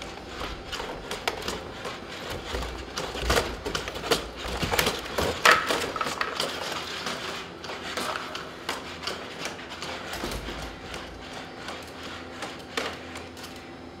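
Boston Dynamics SpotMini robot dog's feet and body clattering on a concrete floor as it struggles through a door, a run of irregular knocks, clicks and scrapes, loudest about three to six seconds in.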